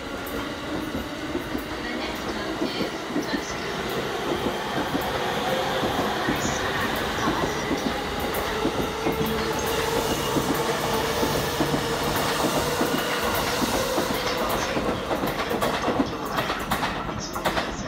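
A 15-car JR East E231/E233-series electric commuter train pulling out and passing close by, its wheels clattering over the rail joints and growing louder as it gathers speed.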